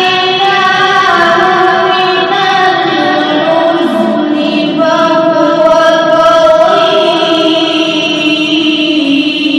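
A single high voice reciting the Quran in the melodic qirat style, holding long notes that bend and ornament slowly.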